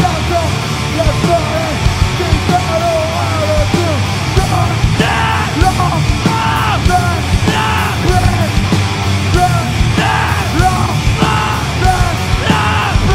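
Screamo band playing live: distorted electric guitars and drums at full volume, with screamed vocals.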